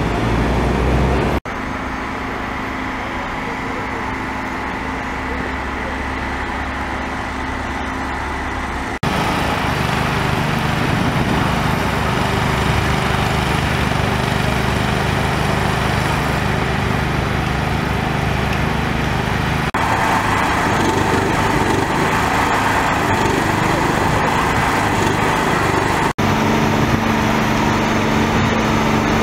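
A small petrol engine running steadily over street traffic noise. The sound shifts abruptly several times.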